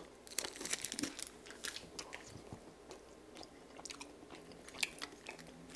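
A person chewing a chocolate-dipped granola bar with a crisp rice centre: a run of small crunches and mouth clicks, busiest in the first couple of seconds and thinning out after.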